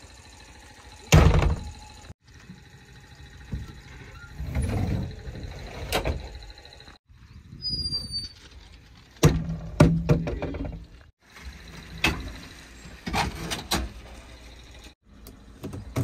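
Cab door and fittings of a JCB 3DX backhoe loader clunking and knocking as they are handled: a series of separate knocks, the loudest about a second in and again just past the middle.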